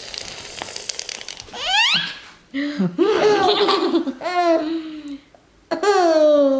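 Baby laughing in bursts, with a high rising squeal about two seconds in and a long falling squeal near the end.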